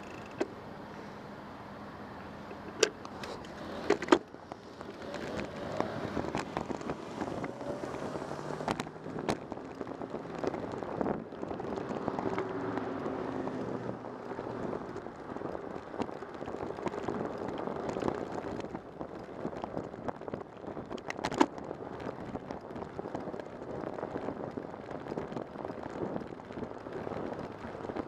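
Rush of wind and road noise from a bicycle riding along a city street, with motor traffic passing. The traffic gets louder about five seconds in. A few sharp knocks come near the start and again about three-quarters of the way through.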